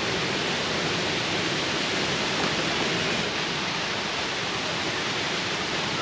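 Waterfall rushing in a steady, even hiss of falling water.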